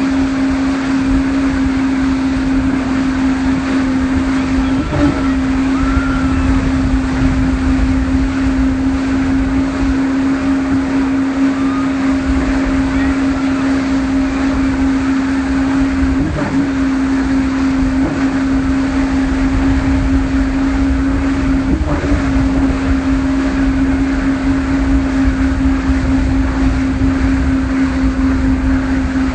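Motorboat engine running at speed while towing a ride, a steady drone that wavers briefly a few times, over the rushing wash of the wake and wind rumbling on the microphone.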